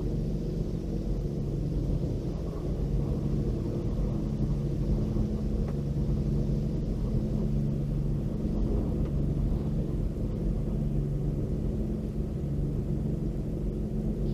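Tammermatic T700 Lux automatic car wash running over the car, heard from inside the closed cabin: a steady low hum and rumble with water spraying and running down the windows.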